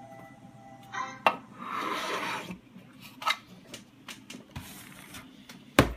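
Handling noise as the boxed Blackmagic Mini Converter SDI is picked up and moved on a wooden desk. A rubbing scrape runs for about a second, starting just after a second in, with scattered clicks after it and a sharp knock near the end.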